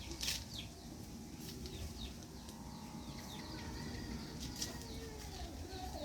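Birds chirping: a run of short, high, falling chirps, with a few sharp clicks about the first second.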